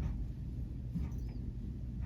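Plastic LED shower head being hand-screwed onto the shower arm: faint scraping and a brief high squeak of plastic threads turning, over a steady low rumble.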